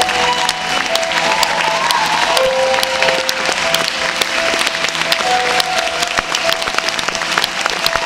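Music with a melody of long held notes plays over steady applause from many clapping hands.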